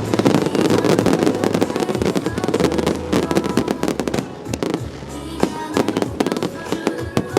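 Aerial fireworks bursting and crackling in rapid succession, with music playing along. The crackle thins out for a moment a little past the middle, then picks up again.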